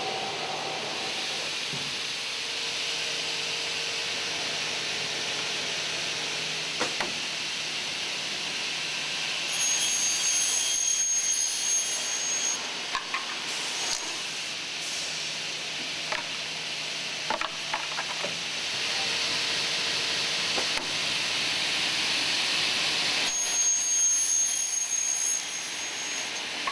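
Vertical double mitre saw running with a steady hiss, and a high whine that comes in twice for a few seconds, about ten seconds in and again near the end, as the blades cut through extrusions. A few sharp clicks sound in between.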